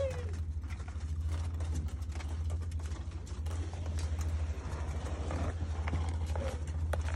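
Ringneck doves pecking seed off the floor, a scattered patter of small sharp clicks, with a short falling coo at the start and another faint one near the end. A steady low hum runs underneath.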